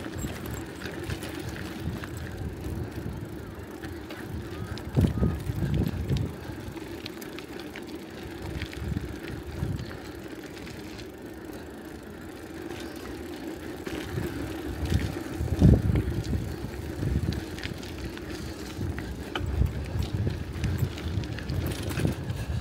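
Mountain bike rolling along a dirt trail: steady tyre rumble with irregular knocks from bumps in the surface, the heaviest about five seconds in and again about sixteen seconds in.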